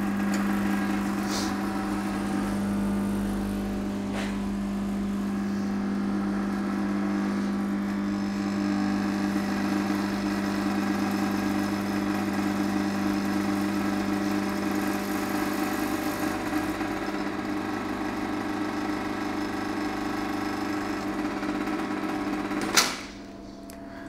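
Profitec Go espresso machine's vibratory pump buzzing steadily as it pulls an espresso shot. It cuts off with a click near the end when the shot is stopped.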